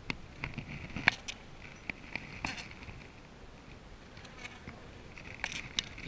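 Wooden beehive frames being pried loose with a hive tool and lifted out of the hive box: scattered sharp clicks and crackles of wood, the loudest about a second in and another cluster near the end.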